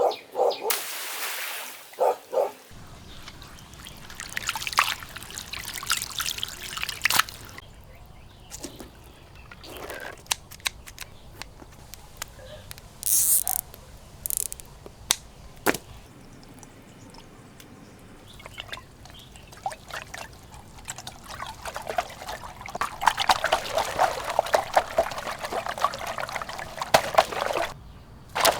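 Water pouring and trickling, with scattered clicks and knocks throughout and a denser stretch of rapid splashing noise near the end.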